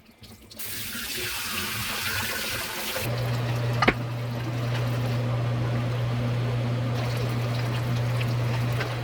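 Water running from a kitchen tap. About three seconds in, a steady low electric hum starts up and runs on, with a sharp click about a second later.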